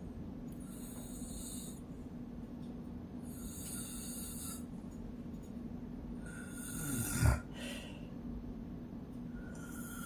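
A woman snoring in her sleep, a snoring breath roughly every three seconds, with one much louder, deeper snort about seven seconds in.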